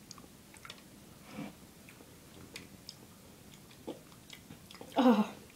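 Wet smacking and clicking mouth sounds of someone eating a spoonful of yogurt, then a short loud groan of disgust about five seconds in.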